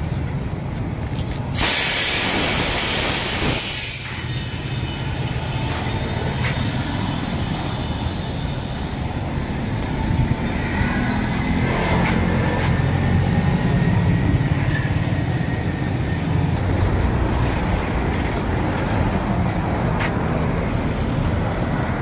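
Compressed air hissing hard at a truck tire's valve stem for about two seconds near the start, then easing off. A steady low vehicle rumble underneath swells in the middle.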